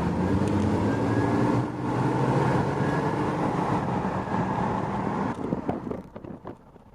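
Car on the move: steady engine and road noise that drops off sharply about five and a half seconds in.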